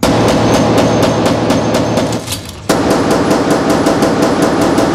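Rapid handgun fire at an indoor shooting range, about five shots a second. It breaks off abruptly about halfway through and goes straight into a second burst.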